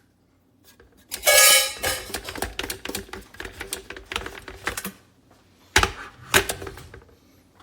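Hard objects clattering and clicking rapidly for a few seconds, then two sharp knocks.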